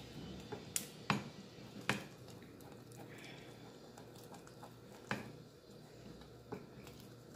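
Wooden spoon stirring thick, thickening glue-and-cornstarch dough in a small metal saucepan, with several sharp knocks of the spoon against the pan, the loudest about a second in and again near two seconds and five seconds in.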